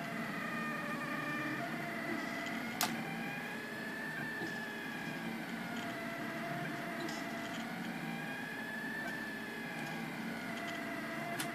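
Anycubic Kossel delta 3D printer running a print, its stepper motors whining in tones that glide up and down in pitch as the effector moves. A sharp click about three seconds in.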